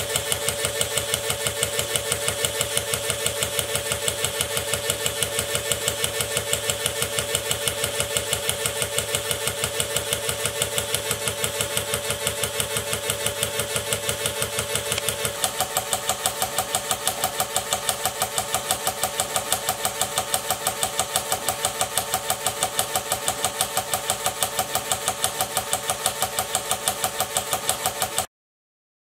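Electric motor of an oil-bath break-in rig turning over an OS Max R2104 model nitro engine, a steady mechanical hum with a rapid, even beat as the piston is worked through the pinch of its liner. The tone shifts about halfway through, and the sound cuts off abruptly near the end.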